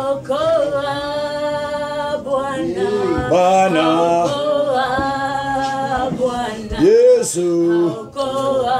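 Unaccompanied worship singing. The voices hold long notes one after another and swoop up or down between some of them.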